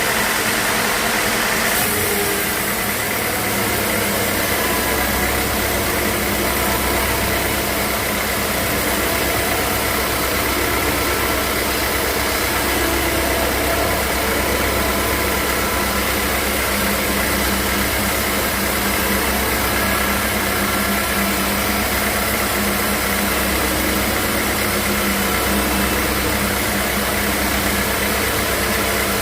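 Sawmill machinery running steadily: a loud motor hum under an even mechanical noise, with the deep hum growing stronger about five seconds in.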